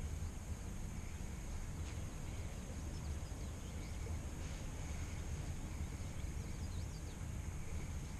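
Outdoor lakeside ambience: a steady low rumble of wind on the microphone under a steady high-pitched hiss, with a few faint short bird chirps twice.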